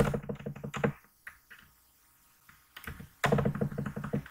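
Typing on a computer keyboard: a quick run of keystrokes at the start, a few single taps, then another quick run in the last second.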